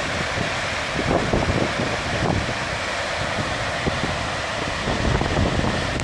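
Steady rushing of the Hraunfossar waterfalls, many small cascades pouring from lava rock into the river below. Wind buffets the microphone in low gusts, strongest about a second in and again near the end.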